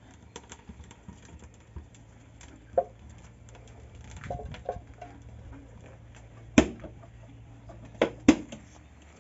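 Freshly lit wood fire crackling in a wood-fired pizza oven: scattered small clicks and pops, with three loud sharp cracks in the second half, over a low steady hum.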